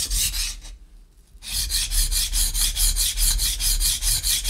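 Steel knife blade being ground on a diamond sharpening plate: quick, even back-and-forth scraping strokes that pause briefly near the start, then carry on.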